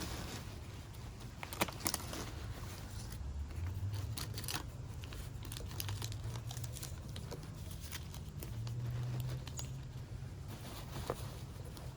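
Packaging being handled and unwrapped by hand: irregular crinkling, rustling and tearing with scattered sharp crackles.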